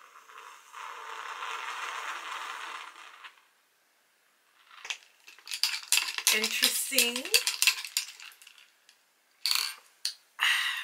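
A few seconds of steady rushing noise, then a quick flurry of clinks and knocks from hard objects being handled, with a few sharper knocks near the end.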